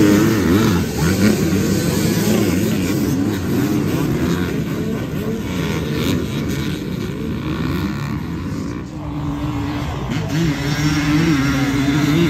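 Several dirt bike engines revving hard together as the riders accelerate off the start line, their pitches rising and falling over one another. After about eight seconds the sound thins to one or a few engines revving.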